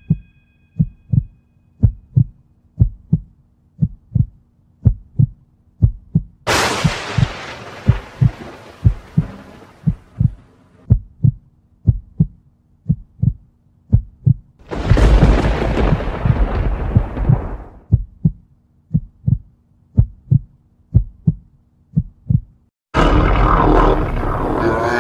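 Horror soundtrack: a heartbeat sound effect, double thumps about once a second over a low steady drone. Twice it is broken by a rushing noise hit that fades over a few seconds. Near the end, loud dense music cuts in.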